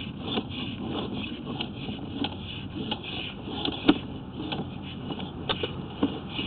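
Sewer inspection camera's push cable being fed along the pipe: scattered clicks and knocks, the loudest a little before four seconds in, over a steady, rhythmically pulsing hiss.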